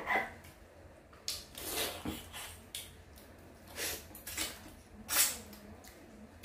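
A person sucking and slurping flesh off pieces of boiled armored catfish held to the mouth. The sound comes as several short, wet bursts, the loudest about five seconds in.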